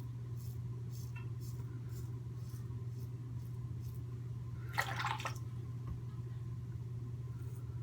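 Safety razor scraping in short strokes against coarse neck stubble, about two strokes a second, over a steady low hum. About five seconds in comes a brief, louder splash of water.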